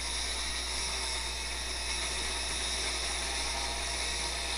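Angle grinder with an abrasive cutoff wheel running steadily under load as it cuts through 5160 spring-steel rod from a coil spring.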